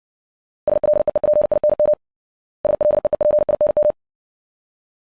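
Morse code practice tone sent at 60 words per minute: a steady mid-pitched electronic beep keyed into fast dots and dashes, in two groups of about a second and a quarter each with a short pause between.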